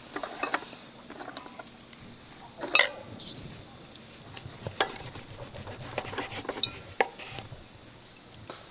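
Cutlery clicking and scraping on a dish as a knife and fork cut into a steak, in scattered irregular strikes, one louder clack about three seconds in.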